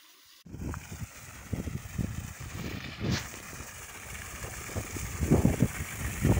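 Wind buffeting the phone's microphone in irregular low gusts, over the hiss of water gushing from a black plastic irrigation hose. The sound starts abruptly about half a second in.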